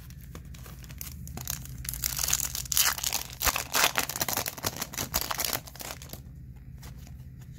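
Foil wrapper of a Topps Chrome baseball card pack being torn open and crinkled by hand: a dense run of crackling and tearing from about a second in, stopping about six seconds in.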